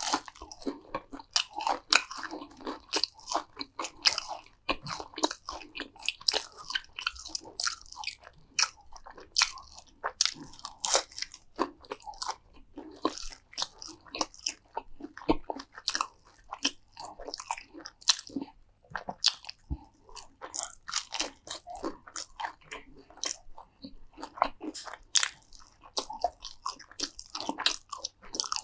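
Close-miked eating: a person biting and chewing crunchy food, with many crisp crunches in quick, irregular succession.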